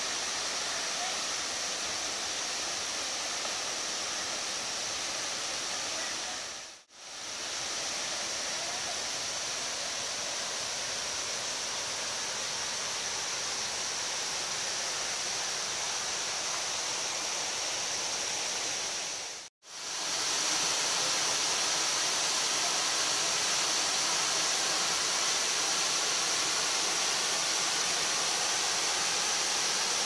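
Steady rushing of water from a rocky rainforest stream and waterfall, with a steady high hiss over it. The sound dips out briefly twice, about a quarter and two-thirds of the way through, and comes back louder after the second dip.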